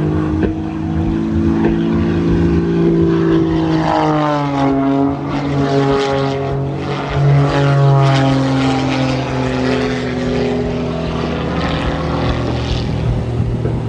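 Aerobatic biplane's piston engine and propeller running hard, the note sliding up and down in pitch several times as the aircraft loops and dives.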